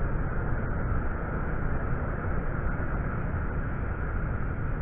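Steady wind rumble on the microphone, with breaking surf washing on the beach beneath it.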